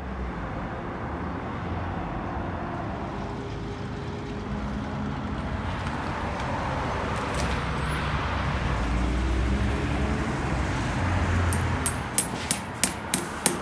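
Road traffic going by, with engine hum that swells as a vehicle passes close. In the last two seconds a run of sharp knocks starts, about three a second.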